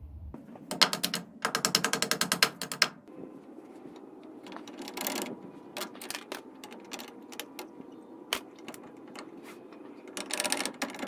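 A ratchet wrench clicking in two quick runs about a second in. Then scattered metal clicks and knocks as the brake shoes are worked off a drum brake backing plate, and another fast run of clicks near the end.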